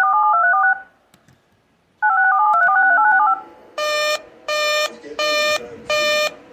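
Emergency alert broadcast tones: two quick runs of DTMF touch-tones, each about a second long, then from about four seconds in a string of harsh buzzing beeps, each about half a second, repeating a little under twice a second.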